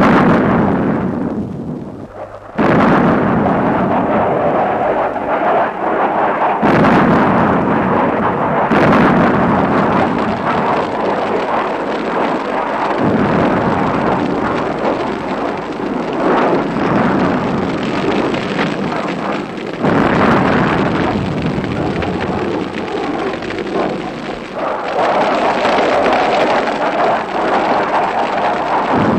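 A run of heavy explosions in a war-film soundtrack: a sudden loud blast to open, then fresh blasts every few seconds with rumbling noise between them.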